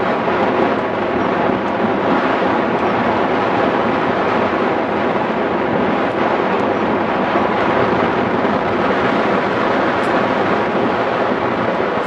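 Steady, loud rush of airflow over the microphone of a camera mounted on a hang glider in flight.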